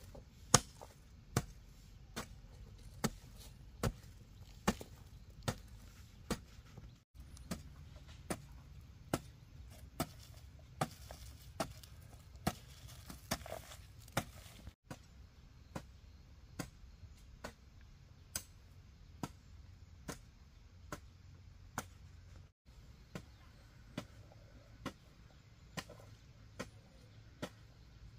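A hand tool striking over and over at an even pace, a sharp hit a little more than once a second.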